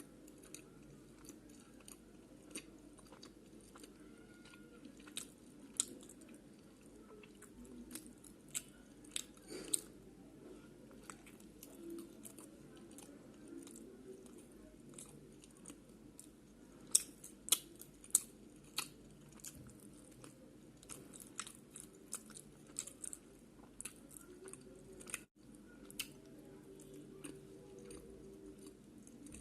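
Close-up chewing and biting of chicken pizza, with scattered crisp crunches of the crust and a few louder bites near the middle.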